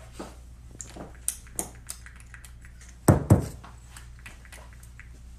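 Scattered light clicks and taps, with two loud thumps in quick succession about three seconds in, over a steady low hum in a small room.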